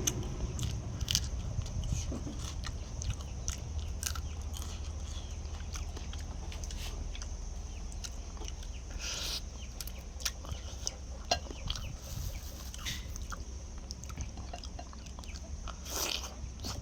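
Close-up eating sounds of chicken being bitten and chewed: scattered wet smacks and crunchy clicks over a steady low hum.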